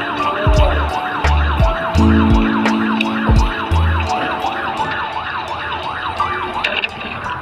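A siren wailing rapidly up and down, about three sweeps a second, laid over music with deep bass beats that stop about four seconds in.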